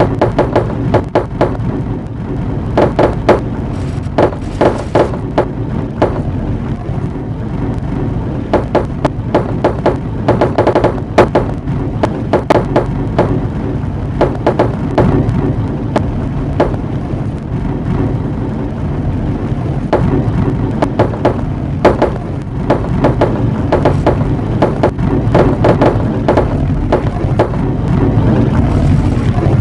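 Marbles rolling along a marble run, a continuous rumble with frequent irregular clacks as they strike the track and each other.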